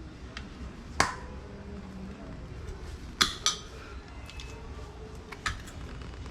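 Hard plastic and metal clicks and clacks of tire-fitting tools working a tire bead onto a bicycle rim: single sharp clicks about a second in and near the middle, a quick pair just after, and another a little later.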